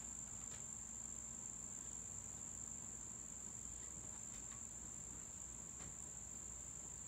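Faint, steady high-pitched chorus of insects, one continuous shrill trill that never breaks.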